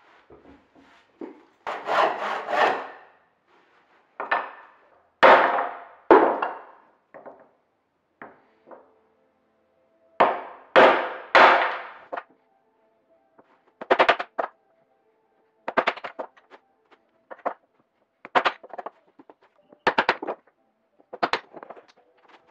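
Hand tools working hardwood: a few long rasping strokes, often two close together, then from about halfway on a run of short sharp knocks on wood.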